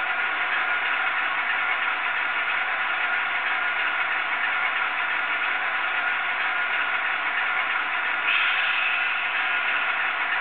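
Diesel engine sound from a DCC sound-fitted model locomotive, running steadily and growing a little louder about eight seconds in.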